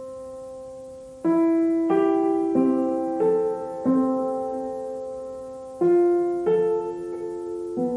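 Background music: slow, gentle piano notes, each struck and left to ring and fade.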